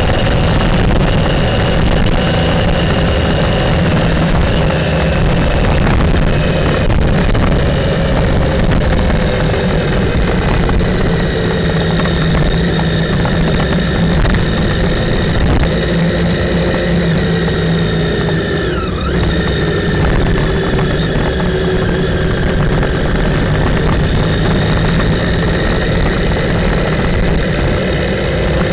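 Motorcycle engine running while riding at a steady pace, its pitch drifting slightly up and down over a heavy low rumble.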